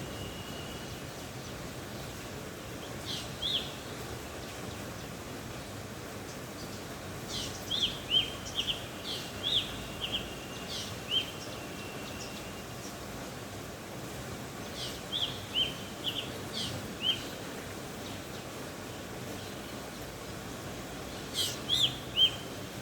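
Black drongo calling in bursts of short, sharp chirps, several notes to a burst, with pauses of a few seconds between bursts, over a steady background hiss.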